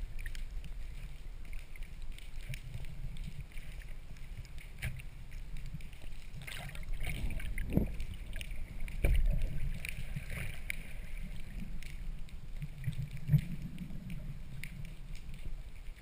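Underwater water noise through a camera's waterproof housing: a steady low rumble of moving water with scattered clicks and knocks. It swells louder about 7 and 9 seconds in, with one sharp knock about 13 seconds in.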